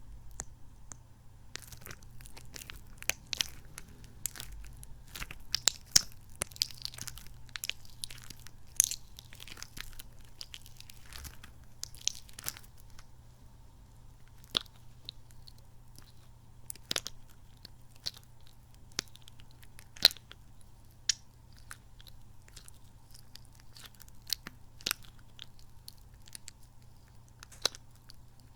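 Squishy kidney-bean toy squeezed and handled close to the microphone, giving sticky, squelchy crackles and clicks at an irregular pace, denser in the first half and sparser later.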